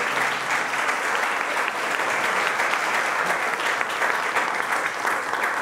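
Audience applauding, a dense patter of many hands clapping, fading slightly near the end.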